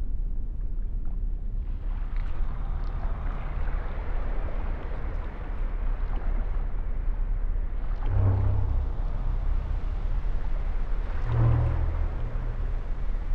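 Muffled underwater-style ambience: a steady low rumbling wash of water noise. Two deep tones swell up through it, one about eight seconds in and one about eleven seconds in.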